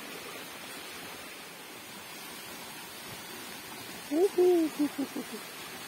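Fast water rushing steadily through a concrete irrigation channel. About four seconds in, a loud hooting call cuts across it: a rising note, a longer held note, then a few shorter notes trailing off.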